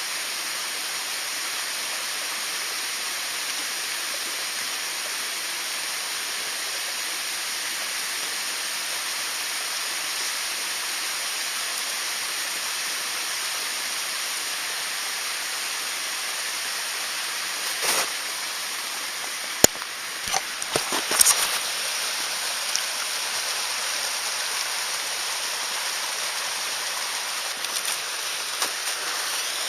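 Mountain stream rushing steadily. A cluster of sharp clicks and knocks comes about two-thirds of the way through, and a few lighter ticks near the end.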